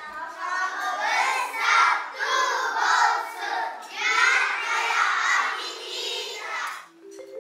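A group of young children's voices together, in unison, in a run of short phrases that stops near the end.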